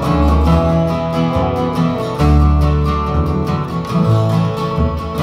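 Acoustic country band playing instrumentally: acoustic guitars strum a steady rhythm over plucked upright double bass notes that change about once a second.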